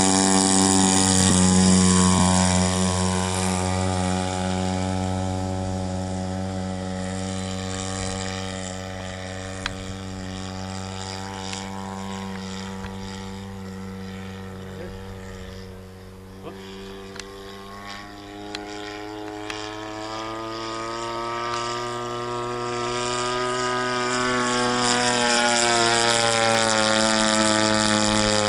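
The 50 cc engine of a radio-controlled Ultimate aerobatic biplane, running hard as the model takes off: the note climbs in the first two seconds as the throttle opens. The steady drone then fades as the plane flies away and grows loud again near the end as it comes back overhead.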